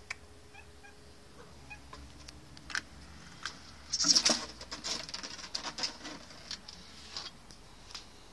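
Faint bird calls outdoors, with a flurry of scratchy rustling and sharp clicks starting about four seconds in.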